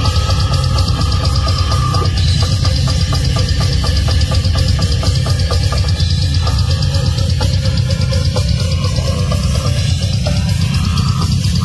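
Heavy metal band playing live: distorted guitars and bass over a pounding drum kit, with a stretch of fast, even drum strokes from about two to six seconds in.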